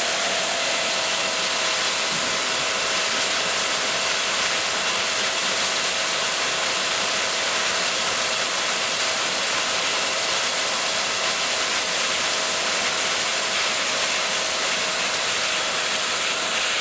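Discharge water from a running Pelton-wheel micro-hydro turbine pouring out beneath its housing and splashing onto rocks, a steady rush of falling water. A faint steady tone runs underneath.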